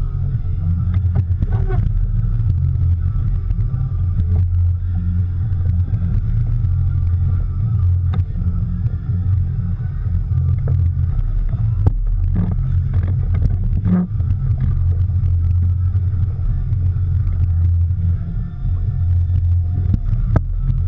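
Fishing boat underway, a steady low rumble of engine drone and wind across the microphone, with a few light knocks about two-thirds of the way in.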